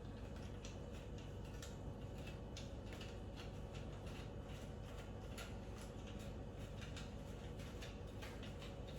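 Faint, irregular light clicks, about one or two a second, as wing nuts are twisted and unscrewed by hand, over a low steady hum.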